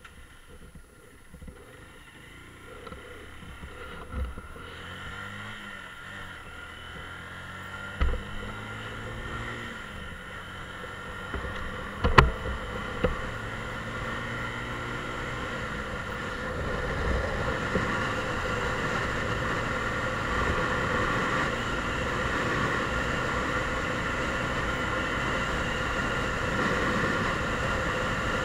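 Mondial Drift 125 motorcycle engine pulling away and accelerating, its pitch climbing in several steps, with three sharp knocks in the first half. It then settles into steady cruising, with wind and road noise growing louder on the bike-mounted microphone.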